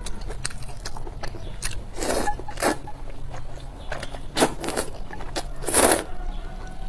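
Noodles being slurped out of a spicy soup, several quick slurps with the longest and loudest near the end, and small wet clicks of chewing and chopsticks between them.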